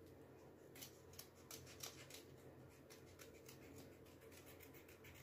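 Faint, irregular snips of scissors cutting paper over near-silent room tone.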